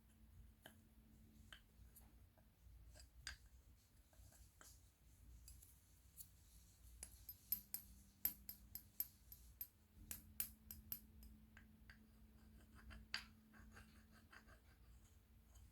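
Quiet crisp clicks and taps of a round plastic cake box and its lid being handled, scattered at first, then a quick run of sharper clicks through the middle.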